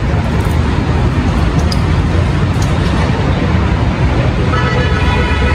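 Steady low rumble of road traffic and engines. Near the end a sustained pitched sound with several tones comes in, like a horn or music.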